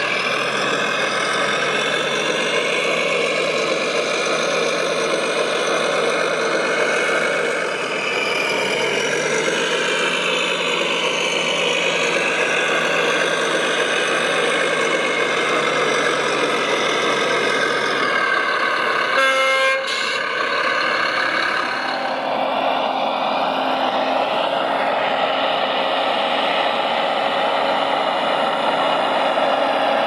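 Scale RC Volvo A45G articulated dump truck's engine sound running steadily, its pitch stepping up once about eight seconds in. A short horn toot comes about two-thirds of the way through, after which a different steady machine sound takes over.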